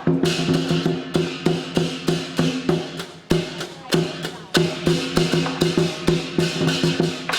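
Chinese lion dance percussion: rapid drum strokes with clashing cymbals over a steady ringing low tone, playing a fast, driving rhythm.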